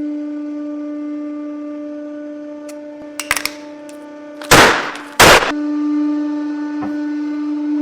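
A hydraulic press's motor and pump hum steadily at one pitch while an object is crushed under the ram. A few small cracks come about three seconds in, then two loud, sudden crunches follow about half a second apart.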